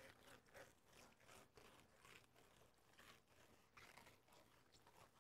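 Faint, irregular scraping of a knife blade sliding between a raw fish fillet's skin and flesh against a cutting board as the skin is taken off.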